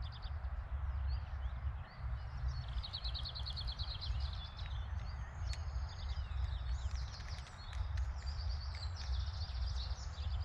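Wind rumbling on the microphone, with small birds singing over it: a fast, even trill about three seconds in, then scattered chirps and warbles.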